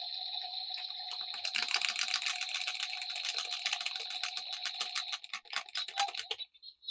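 A battery-powered toy's electronic sound effect, two steady tones over a hiss, joined from about a second and a half in by rapid plastic clicking and rattling. Both stop abruptly shortly before the end.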